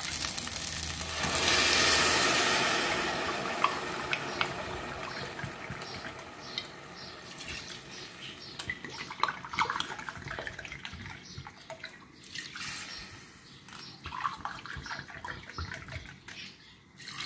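Dry white wine poured from a bottle into a cup and from the cup into a hot pot of oil-toasted rice. A loud splashing rush starts about a second in and fades over a few seconds, followed by quieter pours and light clicks of the cup against the pot.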